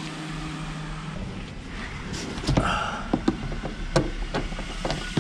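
Scattered plastic clicks and knocks as a car's roof grab handle and headliner trim are handled and worked loose. A low steady hum underlies the first second.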